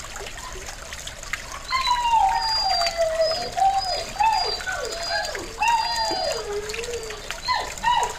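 Dogs yelping and howling: a run of high cries that each fall in pitch, some drawn out, over the steady trickle and splash of a small pond fountain.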